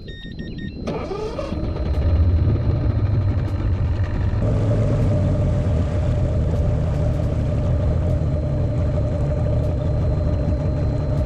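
Bass boat's outboard motor revving up about a second in, then running steadily at speed.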